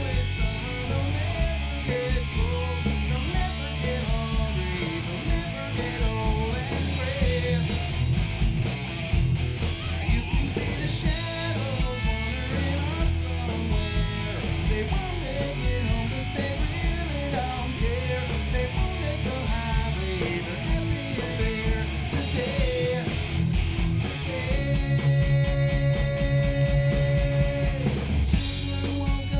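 Live rock band playing, with electric bass and drums under a melodic guitar line that moves up and down; one long held note comes near the end.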